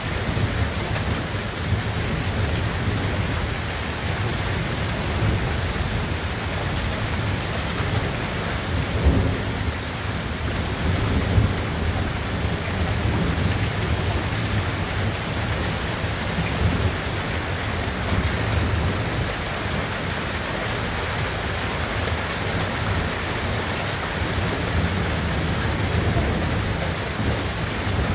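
Heavy rain falling steadily during a thunderstorm, over continuous low rolling thunder that swells briefly about nine and eleven seconds in.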